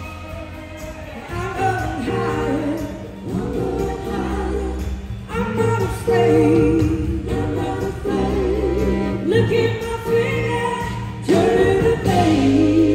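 Live blues-rock band in full swing: a woman's lead vocal over electric guitars, bass and drums, heard from the audience.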